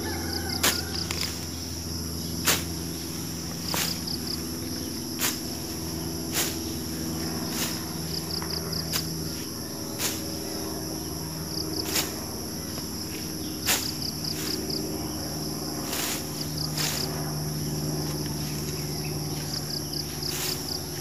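A long-handled curved blade cutting grass in repeated strokes, a sharp cut about every second and a half. Under it, insects chirr steadily, with short pulsed chirps every few seconds.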